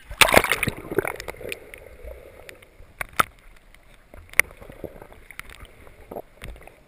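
Action camera plunged underwater: a loud splash and rush of water about a quarter second in, then muffled underwater sound with scattered sharp clicks.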